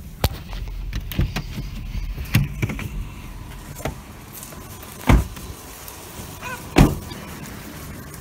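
Clicks and rattles inside a pickup truck's cab over a steady low rumble. Then two loud thumps about a second and a half apart: a truck door being opened and slammed shut.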